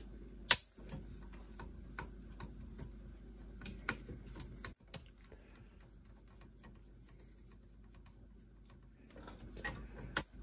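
Light clicks and taps of a screwdriver against a cassette deck's metal chassis and plastic button assembly as the deck is worked apart by hand, with one sharp click about half a second in; the clicks thin out after about five seconds.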